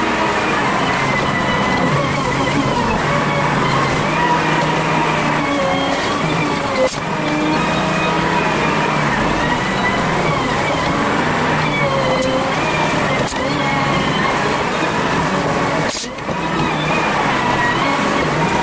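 Volvo BM 4300 wheel loader's diesel engine and hydraulics working while levelling dirt, played back at five times speed so the engine drone is pitched up and its revs rise and fall quickly. A couple of brief knocks stand out over it.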